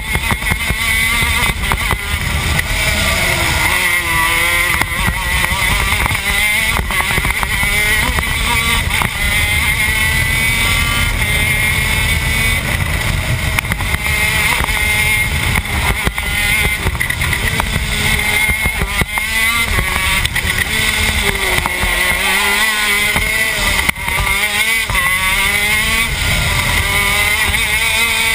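Onboard sound of a shifter kart's TM K9c 125cc two-stroke engine running at racing speed through the gears. Its pitch climbs and drops over and over, dipping deeper about 4 seconds in and again about 22 seconds in.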